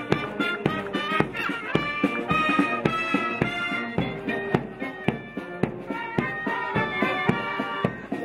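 Marching band music: brass and saxophones playing a tune over a bass drum struck about twice a second.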